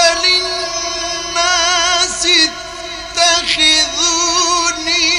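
Mujawwad Quran recitation: a male reciter's voice holds long, ornamented melismatic notes with a wavering vibrato.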